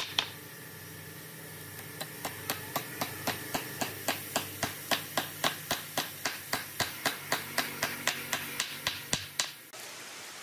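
Rapid, evenly spaced taps of a tool striking wood, about three or four a second, over a faint steady hum; the tapping pauses briefly near the start and stops abruptly near the end.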